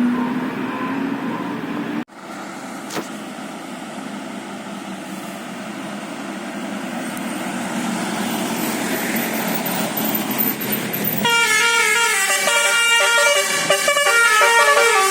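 Vehicle noise growing steadily louder, then, about eleven seconds in, a bus's musical 'basuri' telolet air horn plays a fast tune of several tones stepping up and down.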